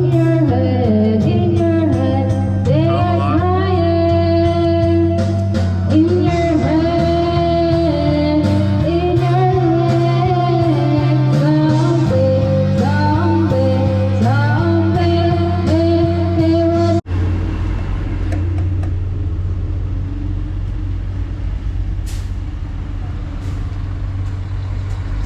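A song with a singing voice over backing music. It cuts off suddenly about seventeen seconds in and gives way to a steady low rumble.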